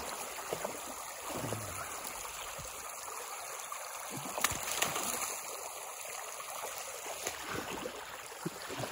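Shallow rainwater stream rushing over a flooded dirt path, with a few short splashes from a dog wading through it.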